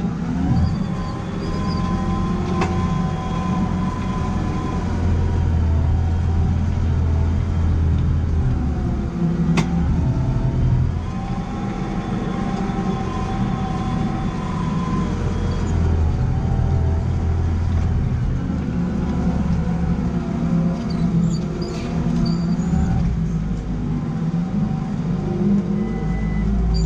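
JCB Fastrac 4220's turbo diesel engine pulling steadily under load while ploughing heavy, wet ground, its pitch sagging slightly and recovering about ten seconds in. A couple of brief sharp clicks cut through it, one near ten seconds.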